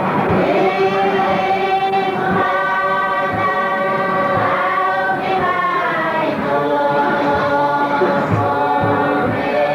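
A group of voices singing together in harmony, with held and gliding notes over a regular low beat.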